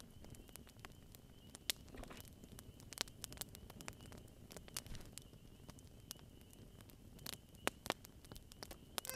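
Wood campfire crackling: irregular sharp pops and snaps over a low hiss, a few louder pops near the end.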